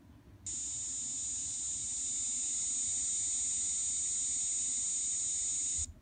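Recorded song of a kaempfer cicada (niiniizemi, Platypleura kaempferi) played through a toy sound-card player's small speaker: one continuous high buzz lasting about five seconds, starting half a second in and cutting off abruptly.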